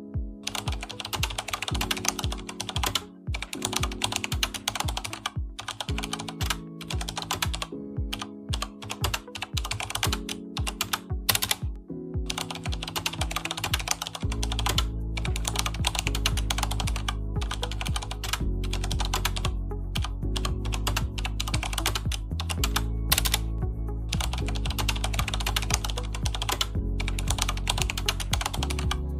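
Rapid keyboard typing clicks over background music made of held chords; a deeper bass joins the music about halfway through.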